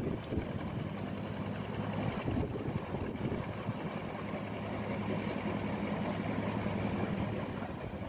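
Two-wheel hand tractor's engine running at a steady pace as it churns a flooded rice paddy, a low even drone that fades out near the end.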